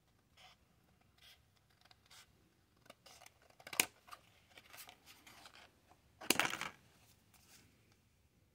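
Scissors cutting a thin white sheet: a few soft snips, then louder, denser cuts, with a sharp snip about four seconds in and the loudest, longest cut about six and a half seconds in.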